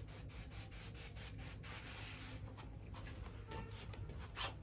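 Hand trigger spray bottle being squeezed in a rapid run of short hissing sprays over the first second and a half, misting the stiff cloth of a turban to set it. A single brief louder rustle comes near the end.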